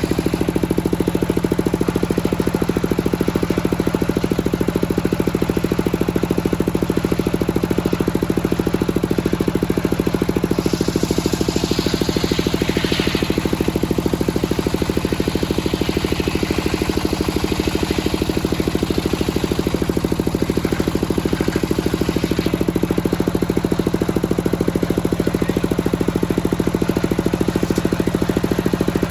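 The engine of a circular sawmill running steadily with a fast even beat. From about ten seconds in, a fainter higher rushing sound sits over it for about ten seconds.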